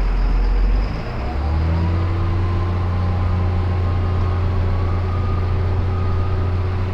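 Tractor engine pulling a loaded feed wagon through deep mud. The engine note rises about a second in and then holds steady under load, with a faint whine above it.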